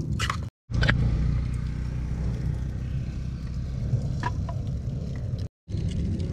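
Steady low rumble of wind buffeting the microphone, with a few light clinks of metal cookware and utensils. The sound cuts out for a moment twice.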